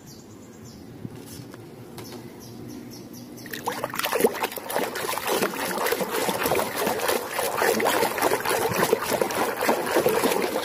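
A hand swishing and splashing a plastic toy animal around in a tub of muddy, sudsy water. It starts quietly, then turns into continuous, louder sloshing about four seconds in.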